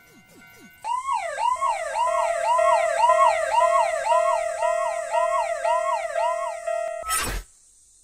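Cartoon ambulance siren sound effect, a tone sweeping up and down about twice a second over a steady lower tone. It cuts off about seven seconds in with a short burst of noise.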